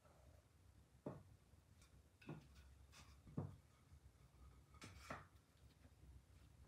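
Faint wooden knocks and bumps, about four spread over a few seconds with the third the loudest, as wooden boards are set on a wooden folding sawhorse and shifted by hand, over a quiet room hum.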